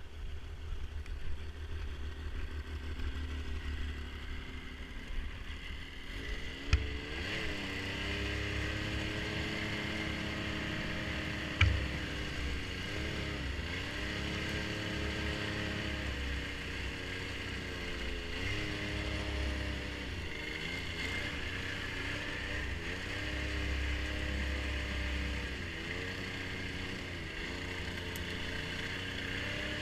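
Snowmobile engine running, its pitch dipping and climbing back again and again with the throttle, from about six seconds in. A heavy low rumble runs under it, and there are two sharp clicks, one just before the engine settles in and one about five seconds later.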